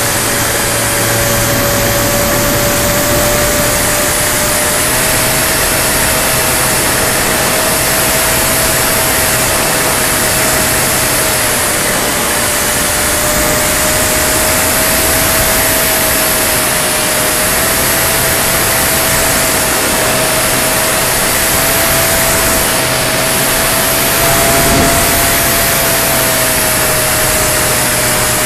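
Radio-controlled Spitfire model aircraft in flight: its motor and propeller give a steady tone that drifts slightly up and down in pitch, under heavy wind rush on a microphone mounted on the wing.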